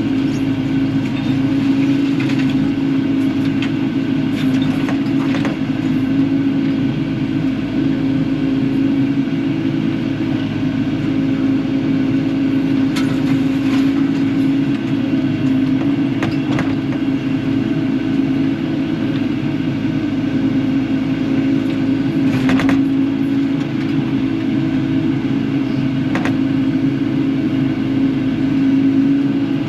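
Kubota KX080-4 excavator's diesel engine running steadily at working speed. Half a dozen short, sharp knocks stand out from the drone, spread through the stretch.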